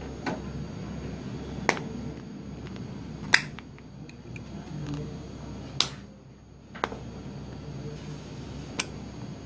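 Sharp clicks from a red plastic suction-cup tool being tugged on the glass back of a Samsung Galaxy S6 Edge+ to pull the back cover up. There are six of them, spread out, and the loudest comes about a third of the way in.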